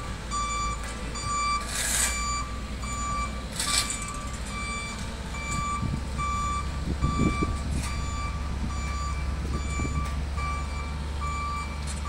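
Backup alarm on heavy road-building equipment beeping steadily, about two beeps a second, over a diesel engine running low. Two short hisses come about two and four seconds in.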